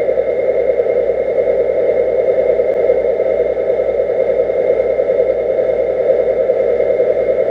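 Steady mechanical drone recorded underwater, even and unbroken, with a few faint constant high tones over it.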